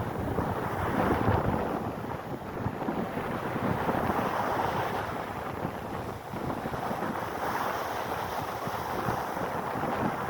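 Gusty storm wind buffeting the phone's microphone, rising and falling in waves of noise.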